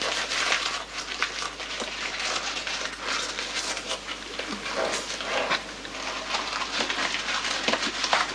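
A person's close, breathy sniffing and puffing at something held to the mouth, with scattered small crackles and rustles over a hissy room recording.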